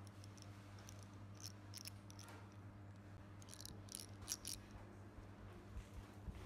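Faint light clicks and small scrapes of a hand-held RC truck differential housing and gear carrier being handled: a cluster about a second and a half in and another around four seconds in. A steady faint low hum sounds underneath.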